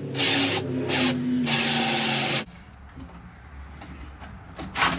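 Cordless drill with a large bit boring into the van's plywood floor, running in three short spurts and stopping abruptly about two and a half seconds in. A few light clicks follow near the end.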